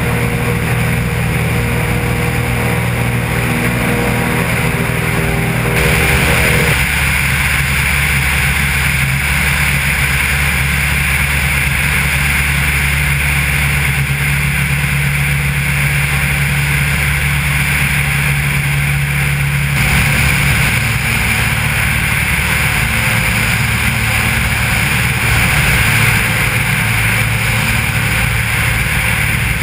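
Maule M4 floatplane's piston engine and propeller droning steadily in flight. Its tone shifts about six seconds in and again about twenty seconds in.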